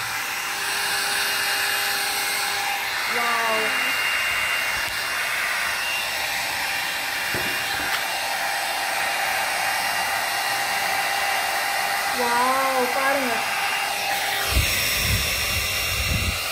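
Handheld hair dryer running on a steady blow, a constant rush of air with a steady motor whine. A low rumble joins it near the end.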